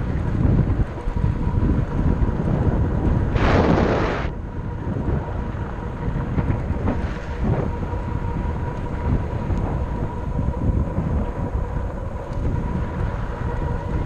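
Wind buffeting the microphone of a camera riding on a fat-tire e-bike, with the rumble of tyres rolling on a dirt road and a faint steady whine. About three and a half seconds in, a loud hissing rush lasts under a second.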